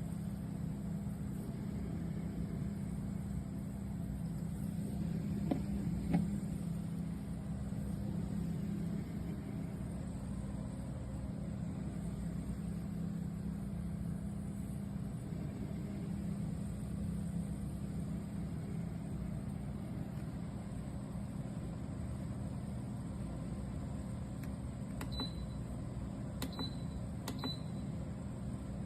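Steady low hum of a BougeRV CRPRO compressor car fridge running, from its compressor and fan. A couple of light knocks come about six seconds in, and near the end three short clicks each carry a brief high beep.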